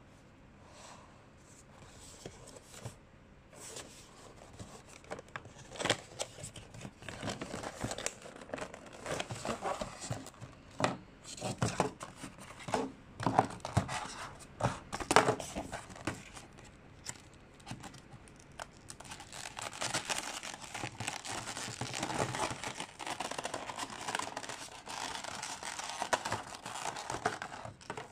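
Clear plastic packaging of a model airplane being handled: after a quiet start, the plastic tray gives irregular sharp clicks and rustles, then a thin plastic bag crinkles continuously through the last several seconds.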